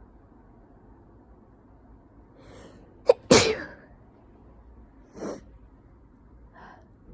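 A person sneezing: a faint breath, then one loud sneeze about three seconds in, followed by two shorter, quieter sounds.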